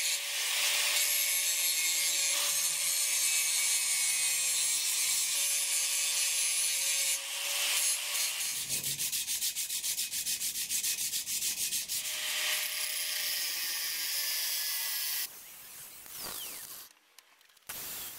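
Angle grinder grinding down a weld on a steel tube, a steady hiss over a steady motor whine. About 7 seconds in it gives way to quick, even back-and-forth strokes of a hand abrasive on the metal for several seconds, then the grinder runs again and stops a few seconds before the end.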